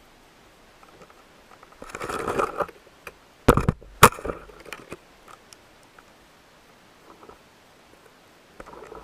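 Underwater sounds: a short rush of noise about two seconds in, then two sharp clicks or knocks about half a second apart, followed by a few faint scattered ticks.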